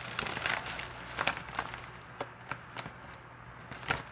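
Packaging of a mailed package being handled and opened: rustling and crinkling at first, then a series of short, sharp crackles a few tenths of a second to a second apart.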